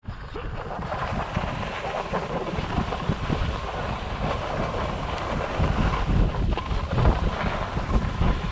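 Wind rushing over a GoPro's microphone while skiing downhill, a steady low rumble with gusts, mixed with the hiss and scrape of skis on groomed snow. It grows louder about halfway through as speed picks up.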